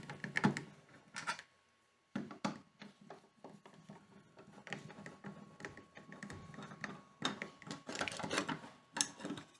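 Screwdriver and plastic switch faceplate being worked off a wall light switch: irregular small clicks and scrapes, with a short pause near the start.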